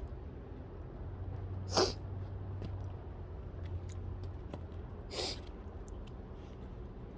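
A sick person coughing twice, short and sharp, about three seconds apart; the first cough is the louder.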